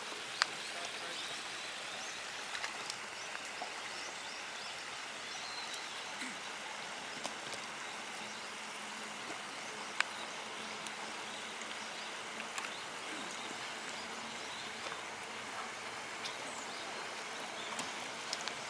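Steady outdoor ambience at a pond's edge: an even hiss like running water, broken by a few sharp clicks, one near the start and one about ten seconds in.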